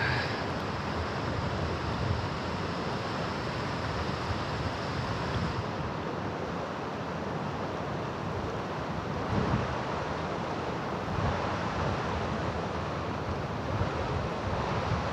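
Shallow river current running over rocks and riffles: a steady rush of flowing water, with some wind on the microphone.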